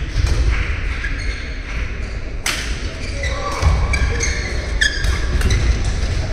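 Badminton rally: a racket strikes the shuttlecock with a sharp crack about two and a half seconds in, followed by a few lighter hits and short shoe squeaks on the court, over the steady low rumble of a busy sports hall.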